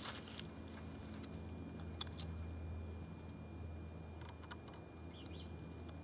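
Quiet outdoor ambience: a low steady hum with a few faint, short chirps and ticks scattered through it.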